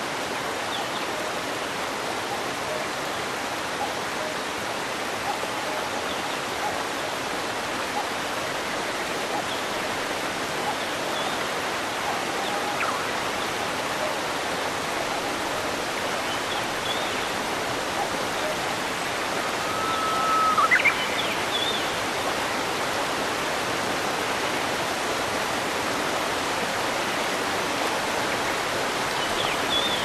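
Waterfall: a steady, even rush of falling water. A few faint high chirps are scattered through it, with one louder short whistle that sweeps upward about two-thirds of the way through.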